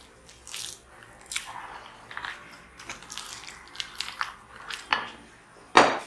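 Wooden spoon folding beaten egg whites into thick chocolate cake batter in a glass bowl: irregular soft scrapes and wet squishes, with a louder knock near the end.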